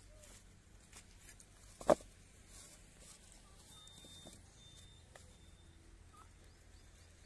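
Unfired clay bricks being handled and set onto a stack: one sharp knock about two seconds in, with a few softer taps and scrapes.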